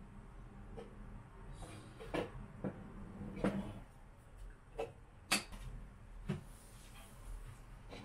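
Scattered light knocks and clicks of small objects being picked up and set down on a desk, about eight in all, the sharpest about five seconds in.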